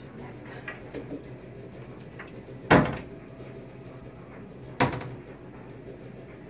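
Two sharp knocks about two seconds apart, each with a short ring after it, over a low steady background hum.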